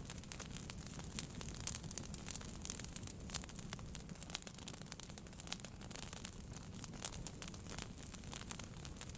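Wood fire burning in a fireplace: a steady low rumble of the flames with irregular sharp crackles and pops from the burning logs, a few louder ones scattered through.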